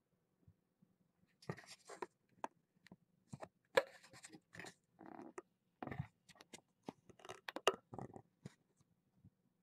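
Kittens close to the microphone making irregular crackling, scratching and clicking noises, from about a second and a half in until near the end.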